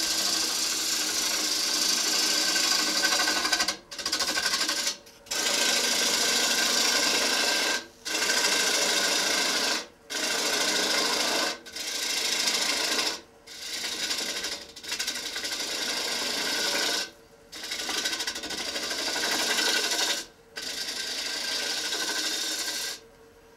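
Gouge cutting the base of a wet, green-wood bowl spinning on an electric lathe: a hissing shear of shavings in about ten passes, each broken by a short pause.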